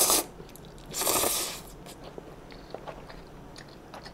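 A person slurping up spicy stir-fried instant noodles: one slurp ending just after the start and another about a second in, then soft chewing with small wet clicks.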